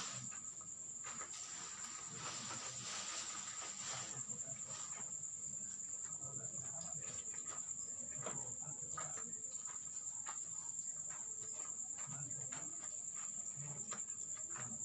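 Crickets trilling, a steady high-pitched chirr, with scattered soft knocks and rustles over it.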